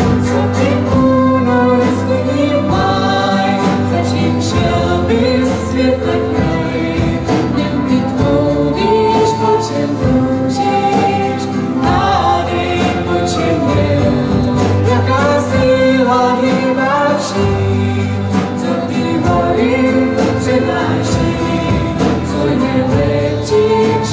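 A young woman and a young man singing a song together into microphones, with electronic keyboard accompaniment, amplified through stage speakers.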